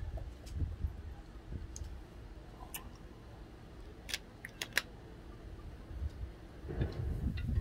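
A few sharp clicks, bunched about three seconds in and again around four to five seconds in, over a low rumble that swells near the end.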